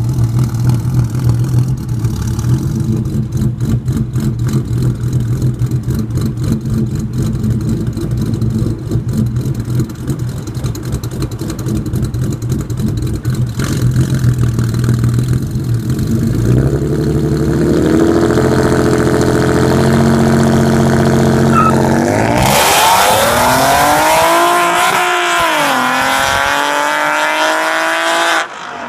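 A 2014 Ford Mustang's 3.7-litre V6, with long-tube headers, an H-pipe and a muffler delete, idles with a choppy, pulsing note from its ghost cam tune. About 16 seconds in the revs step up and hold. Around 22 seconds it launches hard, the revs climbing steeply, dropping once at a gear change near 25 seconds, then climbing again as the car pulls away, before the sound cuts off just before the end.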